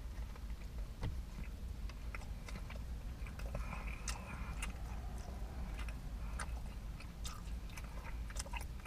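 A man biting into and chewing a bacon burger on a pretzel bun, close to the microphone: soft, wet mouth clicks and smacks scattered throughout, over a steady low rumble.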